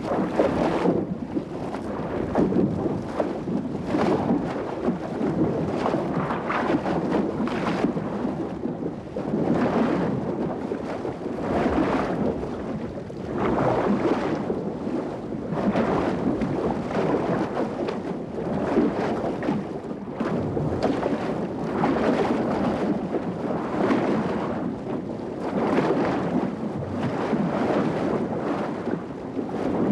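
Water splashing and churning in repeated surges as a great white shark thrashes at the surface.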